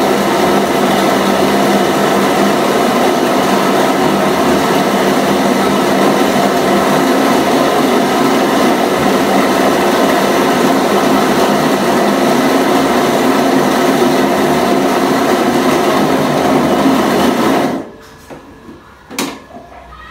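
Electric dough-beating machine running steadily as it beats boiled rice-flour dough for bánh canh, its motor making a loud, even drone. It cuts off suddenly near the end, followed by a single sharp clack.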